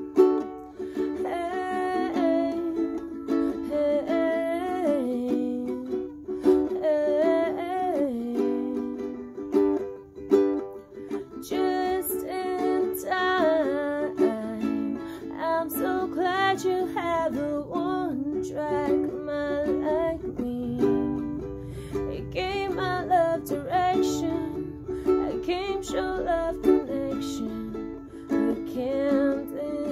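Ukulele strummed in steady chords, with a woman's voice singing a melody over it.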